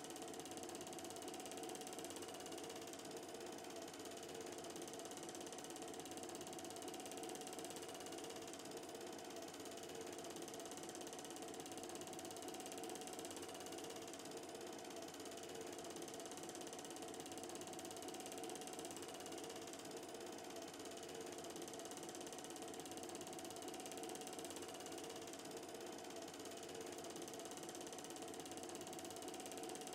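Film projector running steadily, its mechanism making an even, unchanging mechanical noise with a faint steady hum, and no soundtrack heard over it.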